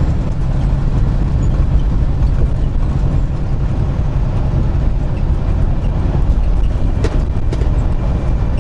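Semi-truck's diesel engine and tyre noise heard inside the cab at highway cruising speed: a steady low drone.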